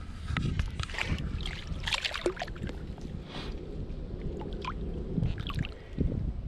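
Water sloshing and trickling with scattered small splashes and knocks, as a freshly landed trout is handled at the water's edge.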